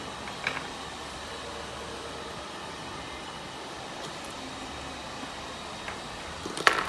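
Steady background hum of room machinery and air, with a small sharp click about half a second in and a louder, sharper clatter just before the end.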